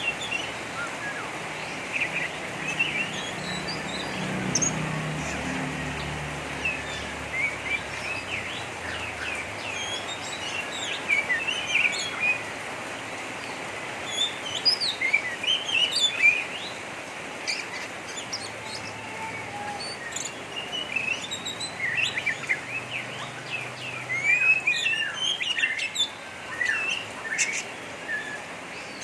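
Oriental magpie-robin (kacer) giving its rough, rapid chattering twitter, the 'ngeriwik kasar' style: many short, sharp chirps and quick slurs in clusters, over a steady hiss. It is the type of chatter used to rouse a kept magpie-robin into fanning its tail.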